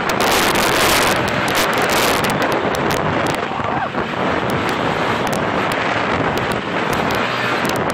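Wind buffeting the microphone over the running engine and tyre noise of a Can-Am Maverick side-by-side driving over a rough dirt track, with frequent sharp knocks.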